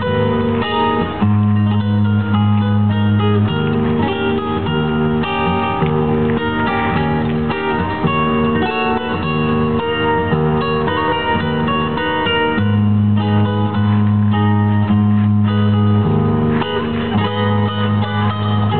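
Classical guitar playing an instrumental passage: quick plucked and strummed notes over held low bass notes that shift to new notes a few times.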